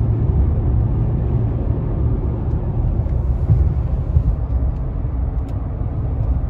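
Road and engine noise inside a Mercedes car's cabin while driving at motorway speed: a steady low rumble.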